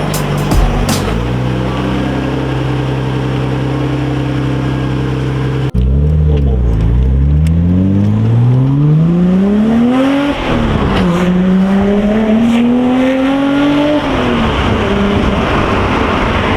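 Nissan Skyline R32 GT-R's twin-turbo RB26 straight-six under way: a steady engine note for several seconds, then the engine revs up hard through the gears, with one shift about ten seconds in, and the revs drop as the throttle lifts near the end. This is the engine running again after the larger fuel injectors were reinstalled to cure a misfire.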